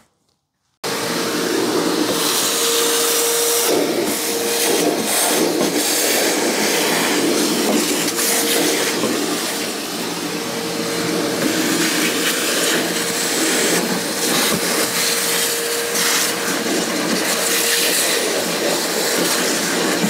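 Shop vacuum running with a crevice nozzle, sucking sand out of plastic dune buggy seats. It comes on about a second in and runs as a steady rush with a steady whine, with small ticks of grit going up the hose.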